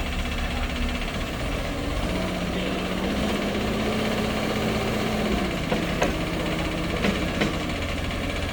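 Diesel engine of heavy earthmoving machinery running, its pitch stepping up and down a little, with a few sharp knocks in the second half.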